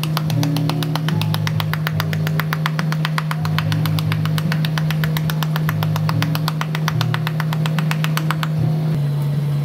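A machine running with a steady low hum and a fast, even ticking, about eight or nine ticks a second, that stops shortly before the end.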